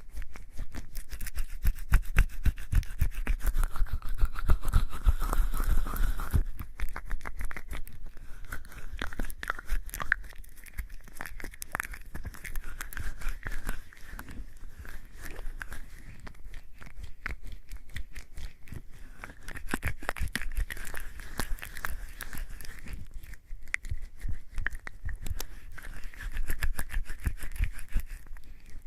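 Wet, soapy hands rubbing together in quick, continuous strokes, lathering with bar soap.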